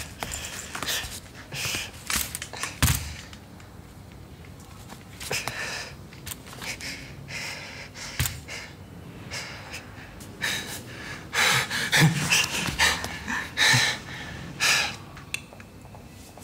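A man's heavy, effortful breathing, short panting breaths and gasps while he walks with crutches and then takes unaided steps. A couple of sharp knocks, crutches tapping or being set down, about three and eight seconds in.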